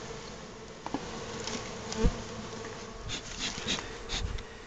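Honeybees buzzing steadily around a hive entrance, with a few small clicks and a low thump about two seconds in.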